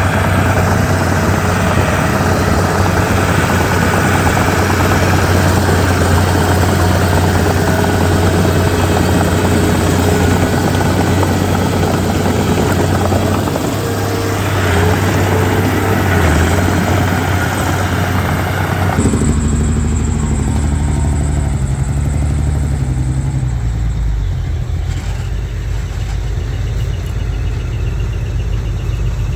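Bulldozer's diesel engine running steadily with a dense, noisy working sound over it. About two-thirds of the way through, the higher noise cuts off abruptly, leaving a lower engine hum.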